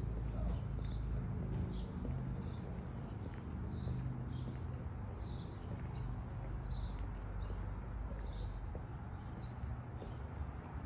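A bird chirping over and over, short high calls about twice a second, over a low steady rumble.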